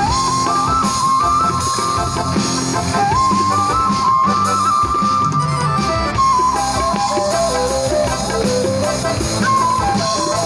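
Instrumental break in an Assamese song: a single melodic lead line stepping up and down over a backing accompaniment, with no singing.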